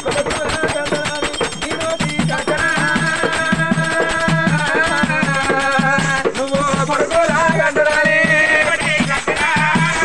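Oggu katha folk music: a barrel drum beaten in a steady rhythm, with jingling rattle-like percussion and a wavering held melody line over the beat.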